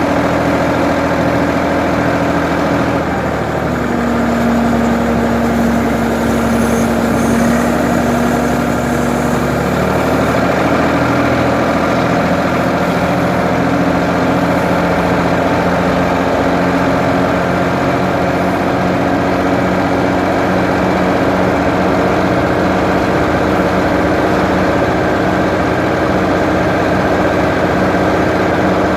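Ford 550 backhoe's engine running steadily. Its pitch dips slightly about three seconds in and comes back up around ten seconds in.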